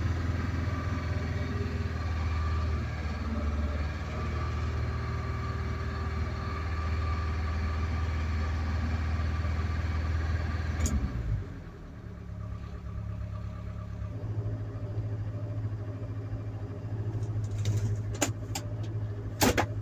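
Ford Cortina Mk3 engine running, heard from inside the cabin, at raised revs that fall back to a lower, quieter idle about eleven seconds in. A few sharp clicks near the end.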